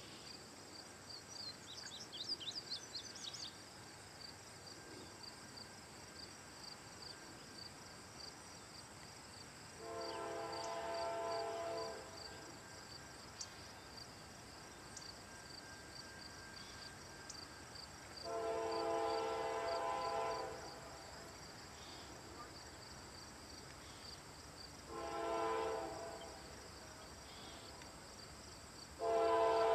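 Approaching Norfolk Southern diesel locomotive's multi-chime air horn sounding the grade-crossing signal: two long blasts, one short, then a long one that is still sounding at the end. Each blast is louder than the last as the train draws nearer. Insects trill steadily in the background.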